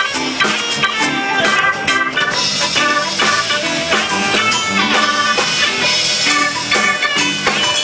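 Live band playing a steady groove, with drum kit and electric guitar audible.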